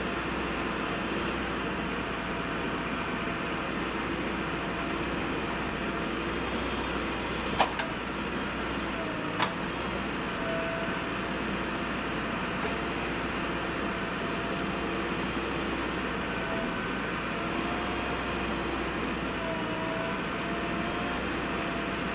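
A steady mechanical drone, like an engine running, with faint wavering tones and two sharp clicks about 7.5 and 9.5 seconds in.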